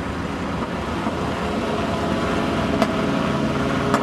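Off-road race vehicle's engine running at a steady speed, with two sharp clicks, one in the second half and one at the very end.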